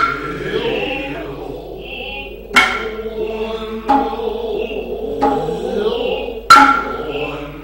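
Noh music: a chorus chanting steadily under four sharp, ringing hand-drum strikes, the first at the very start and the loudest, with the next after about two and a half seconds.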